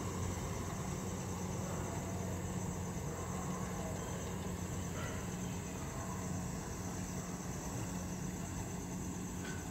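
Kubota DC-68G combine harvester's diesel engine running steadily as it cuts paddy, an even low hum that holds one pitch.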